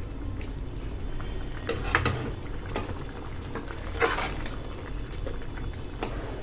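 Metal perforated ladle stirring a thick simmering gravy in a pan, scraping and clinking against the pan, with a sharper clink about every two seconds.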